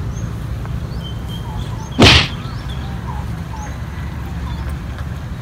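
A fishing rod swung hard in a cast: one sharp whoosh about two seconds in. Birds chirp throughout over a low steady rumble.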